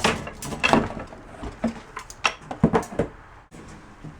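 Objects being handled and moved about: a run of irregular knocks and clatters, a few of them sharp, as things are picked up and set down.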